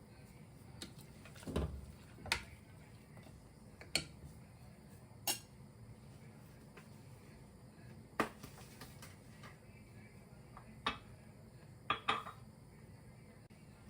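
A metal kitchen utensil knocking and clinking against a cooking pot: about eight sharp, separate knocks, irregularly spaced, with two close together near the end.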